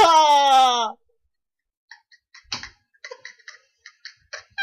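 A woman's high scream that slides down in pitch and breaks off about a second in, followed by near silence with a string of faint, irregular small clicks.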